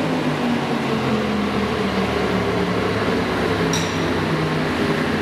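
Modified twin-cylinder garden tractor engine idling low after its full-throttle pull, under steady arena noise. A short high ping comes near the end.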